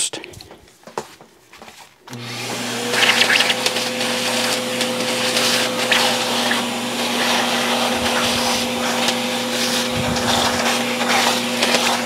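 A vacuum cleaner switches on about two seconds in and runs steadily with a constant motor hum and rushing air. Its hose nozzle is sucking dust out of a Roomba's brush-module frame.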